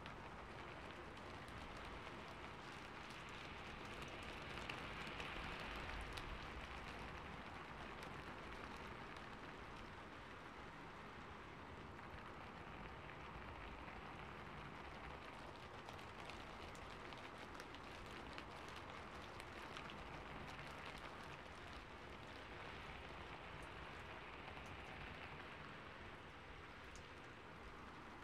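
Calm, steady rain: a soft even hiss with scattered faint drop ticks, swelling slightly about five seconds in.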